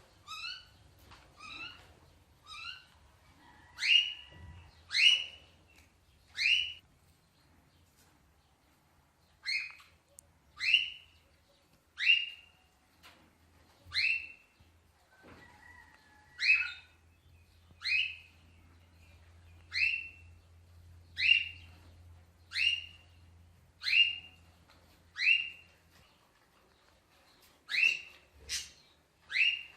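A pet parrot repeating short, sharp, high calls, about one every second and a half, some louder than others. A faint low hum runs under most of them and stops near the end.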